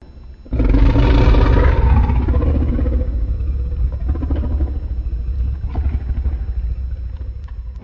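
A Godzilla film sound effect: a loud, deep rumbling blast with a rough, growling layer above it. It starts suddenly about half a second in and slowly fades.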